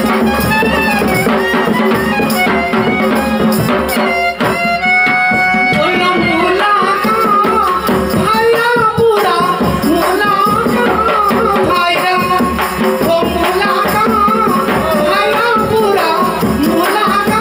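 Live Himachali folk music: harmonium and clarinet over steady hand-drum and jingling percussion. A solo voice begins singing about six seconds in, with a wavering melody.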